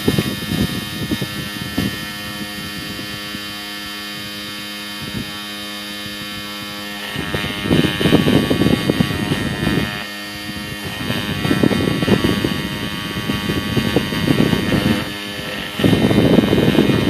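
Small battery-powered toy fan running: a steady motor hum with a high whine. Louder stretches of low rushing noise come and go, at the start, about seven seconds in, again around eleven seconds, and near the end.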